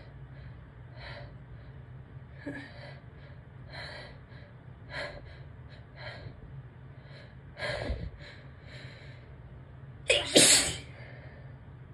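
A person's sneeze build-up: a string of short, breathy gasping breaths about a second apart, then one loud sneeze near the end.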